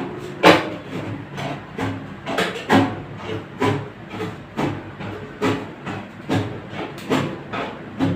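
A run of knocks, roughly one to two a second and uneven in strength, over a steady low hum.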